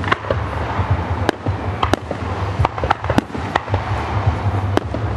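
Aerial fireworks shells bursting overhead: a steady run of sharp bangs and pops, two or three a second, over a continuous low rumble.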